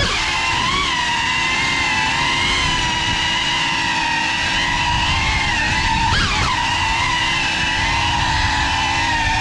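Motors and propellers of a CineLog35 ducted cinewhoop FPV drone, heard from on board: a steady high whine whose pitch wavers with the throttle, with a quick rise and fall about six seconds in.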